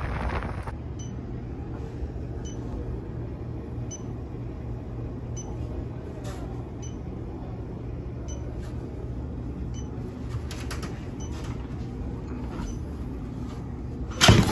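Steady low machine hum from the walk-in cooler's refrigeration equipment, with faint high beeps about once a second. A loud sharp knock comes near the end.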